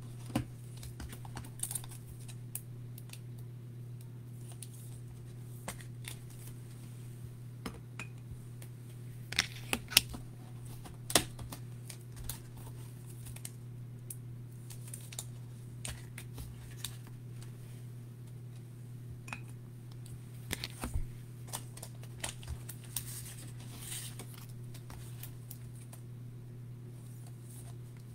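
Trading cards being handled and slid into rigid plastic top loaders: scattered light clicks and taps, a few sharper ones about ten seconds in and again around twenty-one seconds, over a steady low hum.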